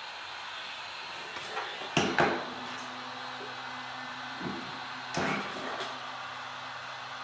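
Temperature-controlled heat gun blowing with a steady hiss while the phone and tools are handled on the bench: a close pair of sharp knocks about two seconds in, then a fainter knock and another clatter a few seconds later.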